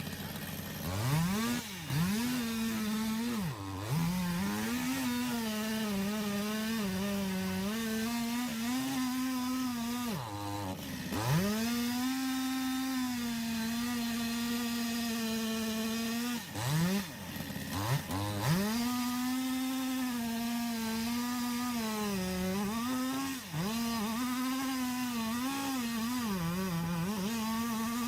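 Two-stroke chainsaw run at high revs, its pitch sagging and recovering as it works, with about three quick drops of the throttle back toward idle, each followed by a fast rev back up.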